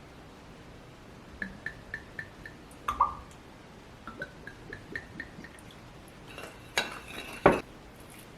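Utensils tapping against dishes in two runs of light, evenly spaced taps, about four a second, with a sharper clink about three seconds in and a louder clatter near the end.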